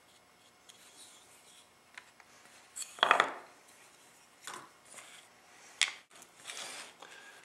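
Handling noise from wood and small tools: a loud clatter about three seconds in, then a few lighter clicks and a short rubbing swish.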